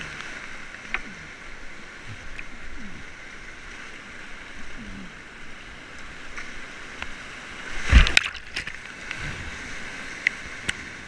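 Whitewater rapids rushing steadily around a kayak, with scattered splashes and knocks from paddle strokes and water hitting the boat. A heavier thump and splash about eight seconds in is the loudest moment.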